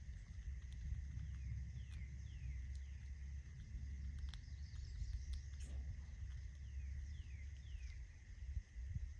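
Outdoor garden ambience: a steady low rumble, a steady high insect-like drone, and repeated short chirps that fall in pitch, in twos and threes.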